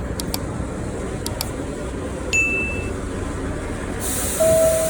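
New York subway train rumbling steadily, with a few sharp clicks and a short high ding about halfway. Near the end comes a hiss of air, and the first, higher note of the two-tone door chime starts.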